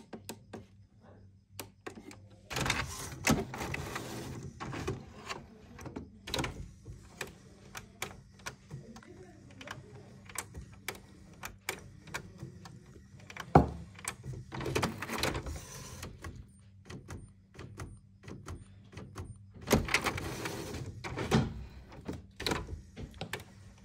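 HP Ink Tank 319 inkjet printer running a printhead cleaning cycle: its motors whir in several bursts of a second or two amid repeated clicking, with one sharp clunk about halfway through. The cleaning is run to clear air bubbles from the black ink tube.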